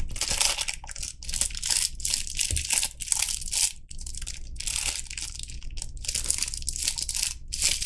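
Plastic wrap being crinkled and pulled off a small cardboard knife box, in quick irregular crackling rustles.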